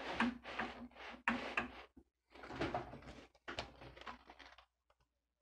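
Hands and a small screwdriver working on an opened laptop's chassis: a series of short handling noises with brief pauses, stopping shortly before the end.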